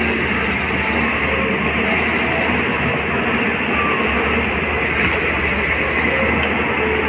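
Diesel engine of a Caterpillar long-reach excavator running steadily as the machine works, a continuous heavy mechanical rumble.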